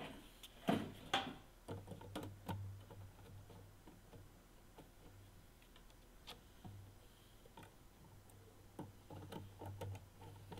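Scattered light clicks and taps of hands working wires and small plastic parts inside a small electrical enclosure, with a few louder knocks in the first second or so.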